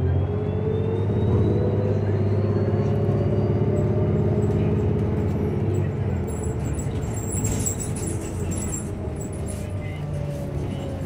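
Inside a New Flyer Xcelsior XDE40 diesel-electric hybrid bus accelerating: a thin whine from the drive rises steadily in pitch over the steady engine drone for about five seconds. The sound then eases, with light rattling as the bus rolls on.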